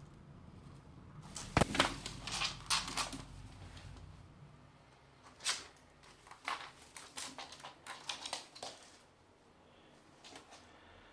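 A run of light clicks and knocks: a cluster about one and a half to three seconds in, the loudest among them, then scattered ones until about nine seconds in.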